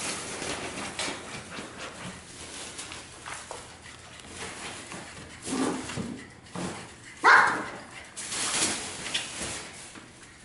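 Puppies playing, with short scuffling sounds throughout. A short low bark-like call comes a little past halfway, and a sharp high yip about seven seconds in is the loudest sound.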